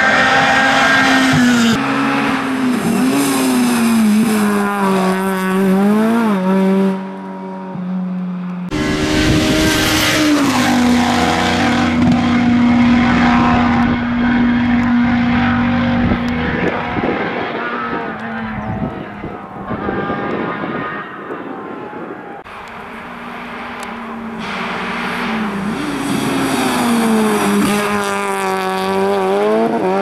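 Small hatchback rally cars (Ford Fiesta, Renault Clio, Citroën Saxo) driven hard one after another on a tarmac stage. Each engine revs high, drops with each gear change and lifts off for corners. The sound switches abruptly to a new pass about nine seconds in.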